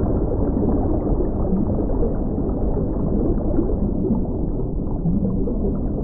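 Underwater ambience: a steady, dull low rumble and gurgle of water, with short faint pitched blips now and then.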